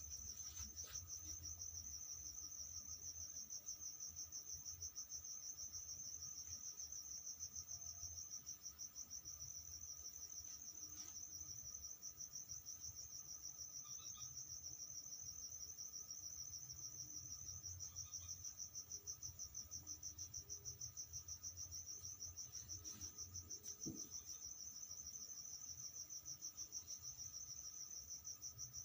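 Cricket trilling steadily, a fast-pulsing high tone, with a faint low hum beneath.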